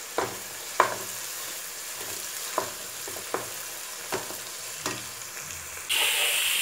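Sliced onions frying in oil in a nonstick pan with a steady sizzle, a spatula stirring and scraping through them about once a second. Near the end a sudden louder, hissier sizzle comes in as raw chicken pieces fry in the pan.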